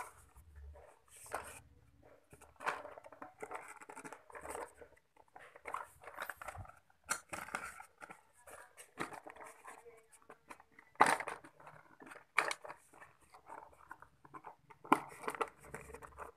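Plastic action-camera accessories and their packaging being handled and rummaged through: irregular rustling and light clicking, with a few sharper clacks of plastic parts knocking together.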